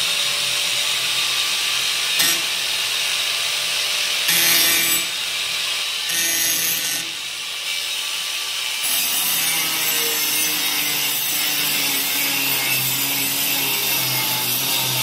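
Titan 750 W, 125 mm angle grinder running and cutting into a ceramic wall tile, a loud steady grinding hiss. The disc fitted is a cutting disc for metal and sheet steel, not one meant for tile.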